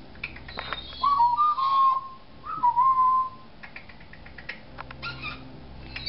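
African grey parrot whistling two clear, steady notes of about the same pitch, each under a second long and a little over a second apart, with small scattered clicks between them.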